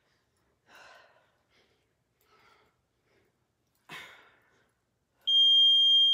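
A woman breathing out hard in three short, faint breaths while exercising, then about five seconds in a gym interval timer starts a long, loud, steady high beep marking the end of the work interval.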